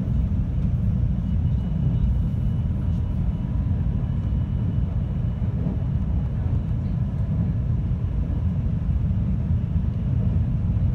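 JR West 521 series electric train running at speed, heard from inside the car: a steady low rumble of wheels on rail with a faint steady high tone above it.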